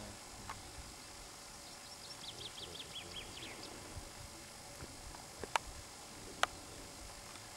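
A songbird sings one short phrase of quick, falling notes about two seconds in, over a faint steady outdoor hiss. Two sharp clicks, the loudest sounds, come near the end, about a second apart.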